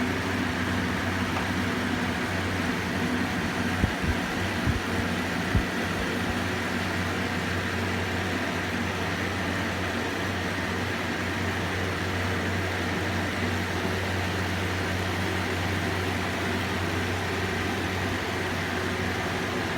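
Chimei electric fan running with a steady mechanical hum and whir: the abnormal noise the fan has developed. A few short low thumps come about four to six seconds in.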